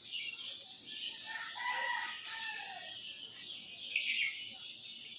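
A rooster crowing once, about a second in, over a steady high background chirring, with a short sharp noise partway through.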